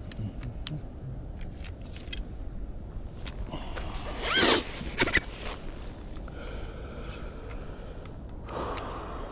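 Scattered small clicks and scrapes, with a loud, quick zip-like pull about four and a half seconds in and a shorter one about five seconds in.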